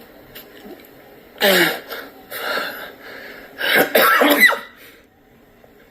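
A man hiccuping hard about four times over three seconds, loud, sudden voiced gulps, the first with a falling pitch: the spasms of his intractable (chronic) hiccups.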